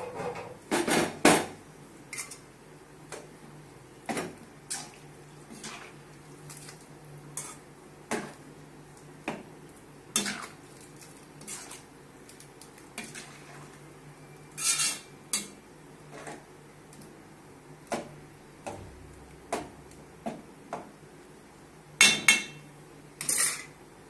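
Metal ladle stirring a thick curry in an aluminium pot, knocking and scraping against the pot with irregular clinks about once a second, with louder clatters about a second in, midway and near the end.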